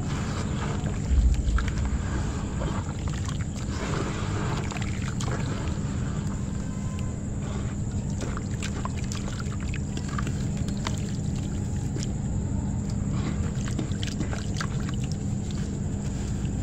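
Hands crumbling and squeezing wet slabs of ash in a basin of water: splashing and squishing with scattered small crackles, and a dull thump about a second in, over a steady low hum.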